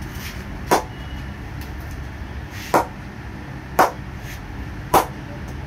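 Leather cricket ball bounced off the face of an SF Incredible English willow cricket bat: four sharp knocks about a second apart, with irregular spacing. This is a ping test, used to judge how the willow responds.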